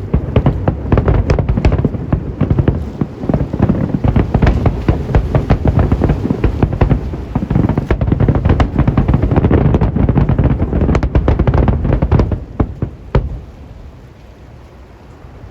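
Aerial fireworks in a dense closing barrage: many booms and crackling bursts overlapping rapidly. They thin out about twelve seconds in, with a few last bangs, then stop, leaving a low steady rush.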